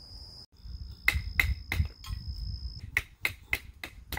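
Firewood being split on a wooden board: sharp wooden knocks of a blade being struck through the wood, three in quick succession and then about five more after a short pause. A steady high insect drone sounds under the first strikes and then stops.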